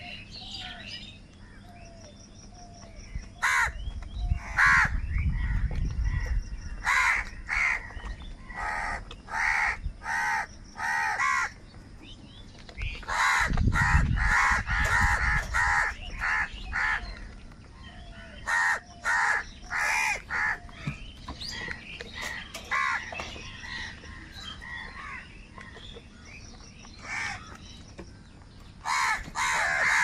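A flock of house crows cawing, with many harsh caws coming in runs of quick calls, then pausing, then starting again, and a burst of overlapping caws near the end.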